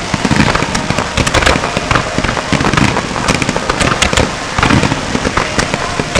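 Fireworks display firing a dense barrage: many shells and comets launching and bursting in quick succession, with crackling and overlapping bangs and no pause.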